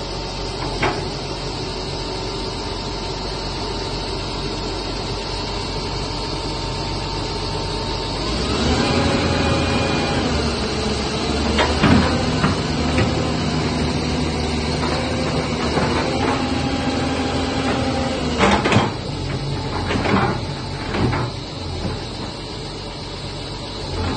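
Hyundai 210W-9 wheeled excavator's diesel engine running steadily. About eight seconds in it gets louder with a whine as the hydraulics work the arm and bucket, and there are several sharp clunks in the second half.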